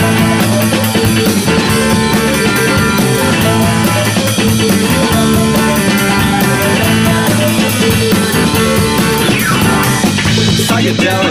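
Background music: an instrumental stretch of a rock song with guitar and drums playing at a steady beat, no singing.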